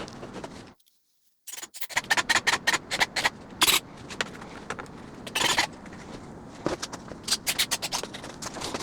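Irregular clicks, taps and scraping of model parts being handled and fitted, with a brief silent break about a second in.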